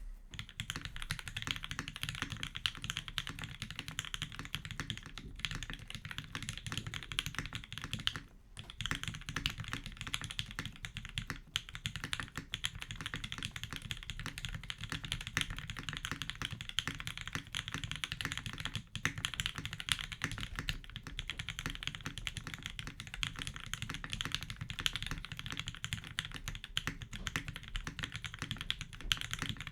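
Steady, fast typing on a TGR Jane V2 custom mechanical keyboard: lubed linear switches (Tealios V2 housings with Gateron Black stems) on a brass plate with no sound dampening, under GMK keycaps. There is a short pause about eight seconds in.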